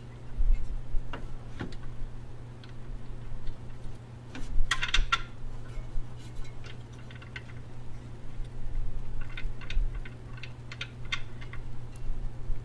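Scattered metallic clicks and clinks of hand tools and bolts being worked under a car while a charger unit is bolted to its mount, with a cluster of clinks about five seconds in and a run of quick ticks about two-thirds of the way through. A steady low hum lies underneath.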